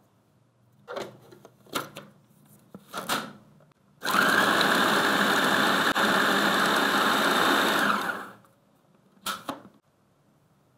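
Electric food processor running for about four seconds, its blade chopping sliced mushrooms and spinach, a steady motor noise that starts and stops abruptly. A few short knocks of ingredients and bowls being handled come before it, and one more knock follows.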